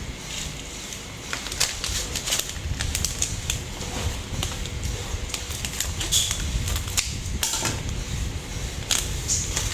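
Irregular light clicks and knocks of kitchen food preparation, scattered unevenly, over a low rumble.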